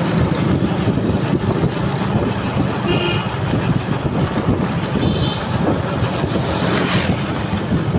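Steady low rumble of a moving vehicle with wind buffeting the microphone. A brief high tone sounds about three seconds in, and another about five seconds in.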